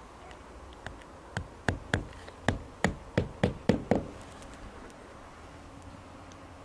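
Hammer driving a roofing nail through an asphalt ridge cap shingle on a shed roof: a run of about nine sharp blows, quickening, starting about a second and a half in and stopping about a second later.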